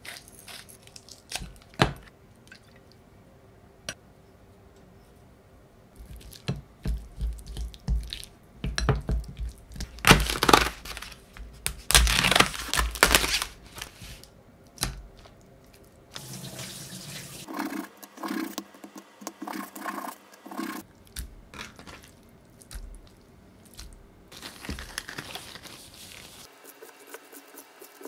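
Kitchen food-prep sounds: a few clicks from a hand pepper grinder, then a loud stretch of wet, splashy noise from about six to fourteen seconds in, then quieter squishing as raw chicken is mixed into red pepper marinade in a glass bowl.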